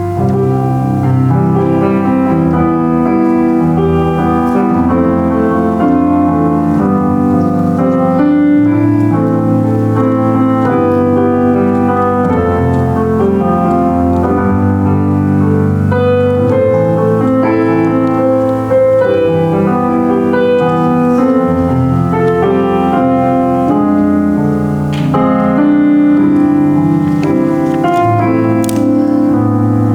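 Solo piano playing a worship song in steady chords beneath a melody, without pause.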